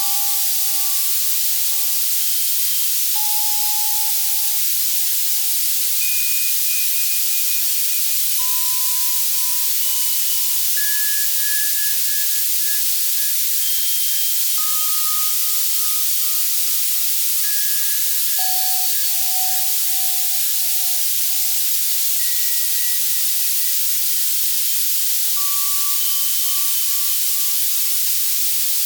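White noise from an Access Virus C synthesizer, a steady hiss heaviest in the treble, with soft synthesized bell tones sounding one at a time every few seconds at scattered pitches, each fading away slowly. It is a tinnitus-masking sound.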